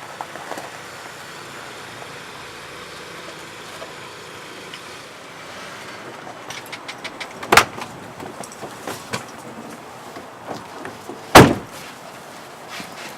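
Two loud thuds about four seconds apart, the second the louder, with lighter clicks and knocks between them over a steady low background.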